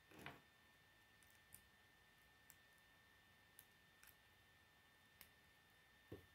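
Faint, sparse clicks of plastic K'nex rods and connectors being handled and snapped together by hand, roughly one a second, with a soft knock near the end.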